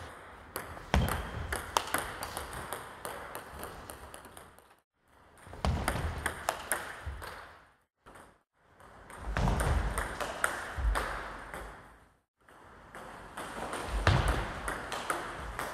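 Table tennis ball clicking repeatedly off the table and the bat in quick practice strokes, with low thuds underneath. The clicking breaks off into short silences three times.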